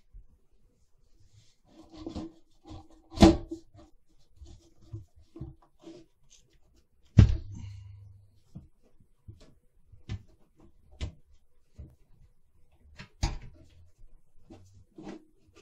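Metal chassis of a Behringer mixing desk being handled and set down on a workbench: a few sharp clunks, the loudest about three seconds in and another with a dull thud about seven seconds in, with light taps and rattles between.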